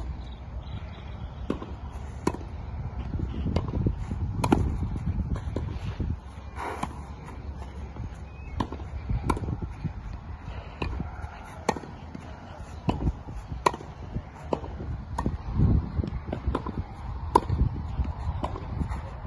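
Tennis balls being struck by rackets and bouncing on a clay court during groundstroke practice: a string of sharp pops, roughly one every second, over a low rumble.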